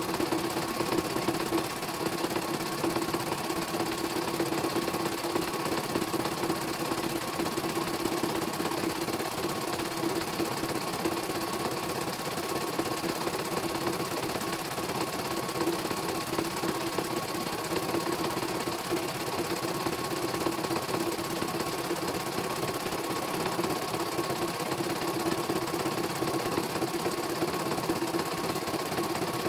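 CNY computerised embroidery machine stitching a design: a steady, rapid run of needle strokes over the hum of its motor.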